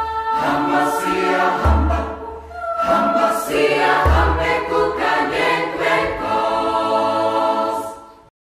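Choral music with sustained voices over deep bass notes that come in about every two seconds, fading out near the end.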